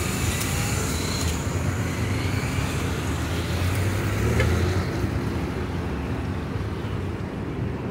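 Street traffic noise as an Eletra articulated battery-electric bus drives slowly past close by: a steady low rumble of tyres and running gear that swells a little about halfway through as the bus comes nearest.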